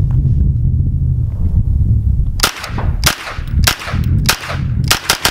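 Century Arms NAK9-X 9mm AK-pattern pistol fired semi-automatically: about six shots starting about two and a half seconds in, roughly one every half second and quickening near the end.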